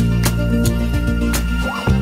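Background music: sustained bass and chord notes with light percussive hits.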